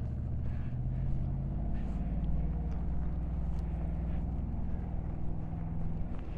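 Vehicle engine running with a steady low drone, its pitch shifting a couple of times.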